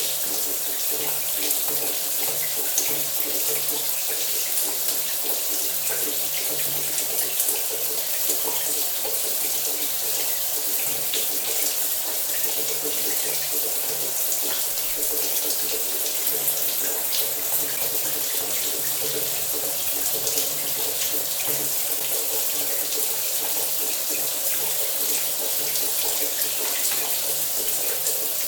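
Running shower water spraying, a steady hiss with fine spatter and a faint low hum underneath.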